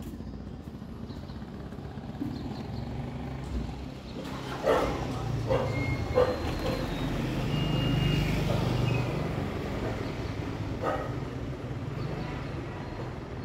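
Low rumble of a vehicle that swells and then fades, like traffic passing by. Several short, sharp, loud sounds break in about a third of the way through and once more near the end.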